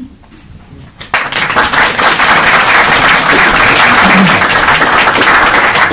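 Audience applauding: many hands clapping in a dense, steady patter that starts suddenly about a second in.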